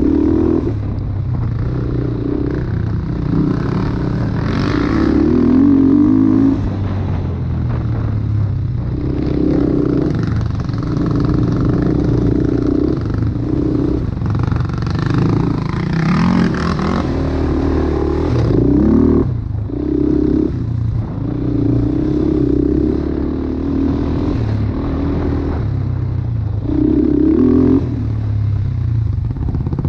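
ATV engine running under changing throttle, opening up and easing off every second or two, with one longer rising rev about two-thirds of the way through.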